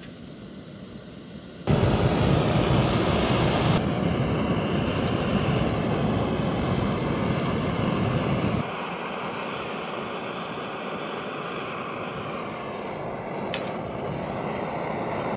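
Backpacking canister gas stove burner running under a camp kettle of water: a steady hiss of gas and flame. It comes in suddenly about two seconds in and drops to a lower level a little past halfway.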